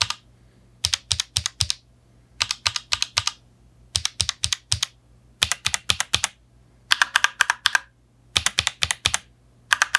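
Mechanical keyboards with RK Yellow switches, one a gasket-mounted RK M75 and one a plate-mounted RK96, typed on in six short bursts of rapid keystrokes. The same switch type is heard in two differently mounted keyboards.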